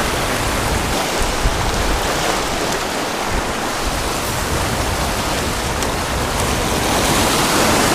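Small waves breaking and washing over black lava rocks at the shoreline: a steady rush of surf and foaming water, swelling a little near the end.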